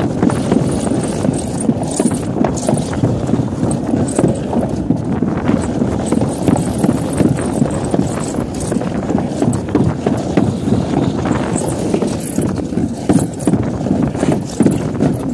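Alpine slide sled running fast down its track: a continuous rough rumble from the sled on the track surface, with quick rattling and clattering over the joints and bumps.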